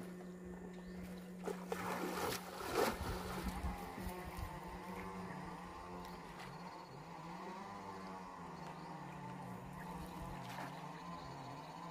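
Electrofishing machine giving a steady low buzz while its pole is swept through the water, with a higher tone that warbles up and down from about halfway on. A short splash about two seconds in.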